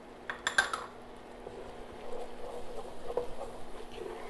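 A few sharp clinks of a utensil against a dish or pan about half a second in, then ground lamb frying in a pan with an irregular crackling sizzle.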